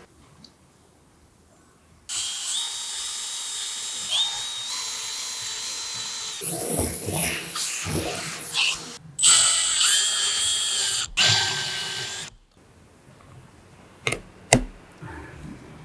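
Electric drill running in three bursts, its whine climbing in steps in the first and growing louder and harsher partway through, then two sharp clicks near the end.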